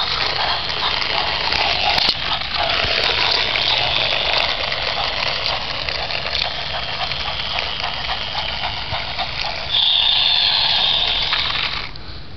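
Battery-powered plastic toy train running across concrete: its small motor whirs and its wheels rattle steadily. The sound briefly grows louder and shriller, then cuts off shortly before the end.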